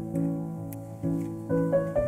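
Background piano music: a slow melody over held chords, the notes changing every half second or so.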